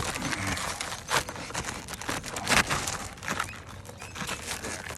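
An asphalt roofing shingle crackling, tearing and crunching in irregular sharp bursts as it is pried off the roof decking with a roofing snake. The shingle is delaminating and coming apart into two pieces.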